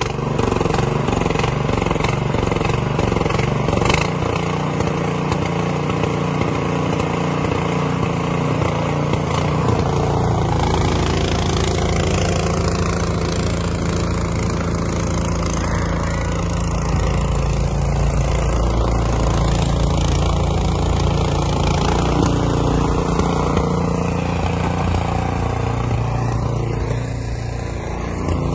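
Gas-engined two-stage snowblower running steadily just after a cold start. Its sound gets deeper about ten seconds in as it clears snow and throws it from the chute.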